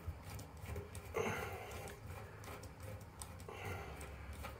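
Faint small ticks and light scraping of a screwdriver turning out the retaining screw of a bath waste's metal plug grate.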